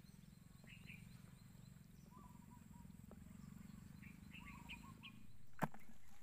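Faint bird chirps over a low, steady rumble, which stops about five seconds in, followed by a single sharp click.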